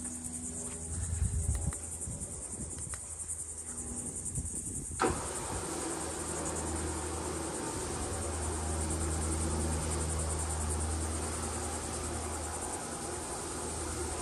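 Motorized lanai screen's motor running with a low steady hum as the screen rolls up, over a steady high-pitched buzz. About five seconds in, a broad rushing noise joins and stays.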